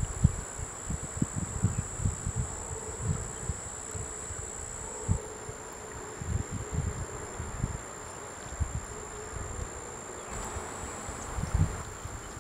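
A continuous high-pitched insect trill, one steady tone throughout, with irregular low rumbles of wind on the microphone.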